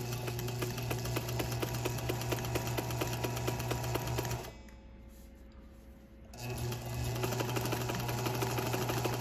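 Sewing machine stitching a straight-stitch hem through knit fabric backed with stabilizer tape, its motor humming under an even, rapid needle rhythm. It stops for about two seconds near the middle, then starts sewing again.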